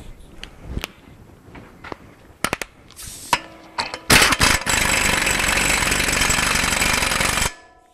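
Impact wrench running in one steady burst of about three and a half seconds as it drives on a new front axle nut, cutting off suddenly. Before it come a few light metallic clicks as the socket is fitted.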